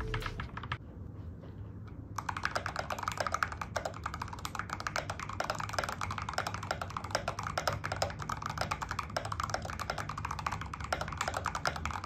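Fast typing on an RK61 Pro mechanical keyboard with stock Aqua King switches, POM jelly keycaps and tape and paper mods. After a short pause, a dense, continuous run of keystroke clacks starts about two seconds in.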